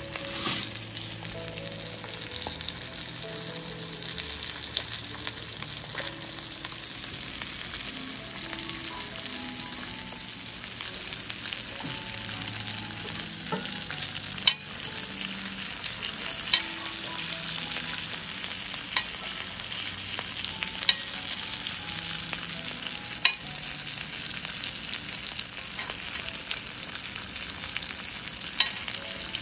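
Whole masala-coated pomfret pan-frying in oil on a cast-iron griddle: a steady sizzle with sharp pops of spitting oil every few seconds.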